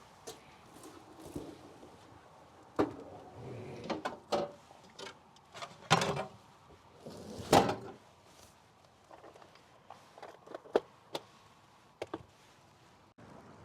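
A string of irregular knocks and clicks from objects being handled, the loudest about 3, 6 and 7.5 seconds in, with lighter, sharper clicks later.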